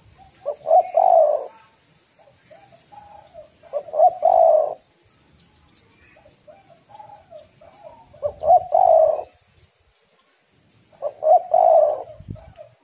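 Spotted dove (tekukur) cooing: four repeated phrases, each a few soft notes leading into a louder rolling coo, about one every three to four seconds. The uploader presents it as a female calling in breeding mood.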